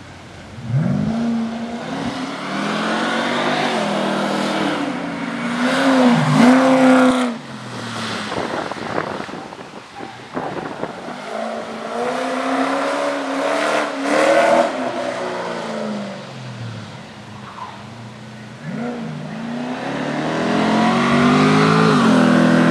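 Holden Commodore ute with an automatic gearbox driven hard up a hillclimb course. Its engine note repeatedly climbs in pitch and drops back, and grows louder and fainter as the car comes closer and moves away. It is loudest about six seconds in and again near the end.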